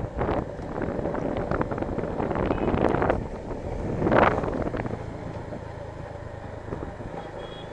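Motorcycle engine running while riding, with wind buffeting the microphone in gusts, loudest about four seconds in.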